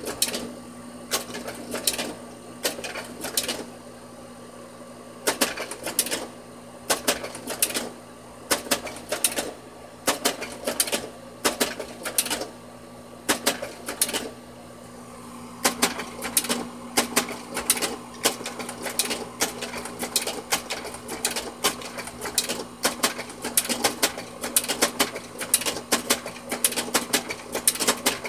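Kodak Carousel 4200 slide projector cycling slides by its wired remote: repeated clacking of the slide-change mechanism as the round tray steps, over a steady motor hum. The slide changes come in quick clusters about once a second, growing faster and almost continuous from about halfway through.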